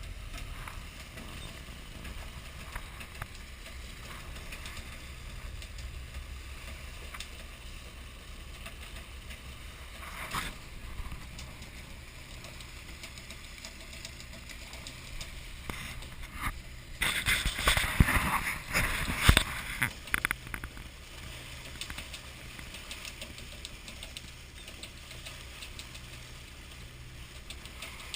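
Fishing boat's engine running with a steady low rumble. About seventeen seconds in, a loud burst of rapid clattering and knocking lasts about three seconds, and a shorter, fainter clatter comes about ten seconds in.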